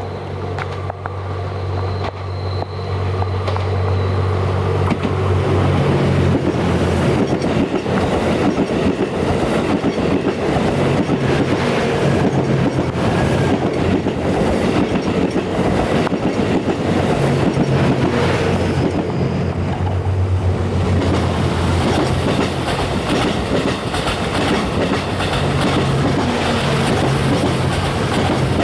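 JR West Series 87 Twilight Express Mizukaze diesel-electric train passing close by: a low engine drone grows louder over the first few seconds, then gives way to a steady rattle and clatter of wheels over the rails.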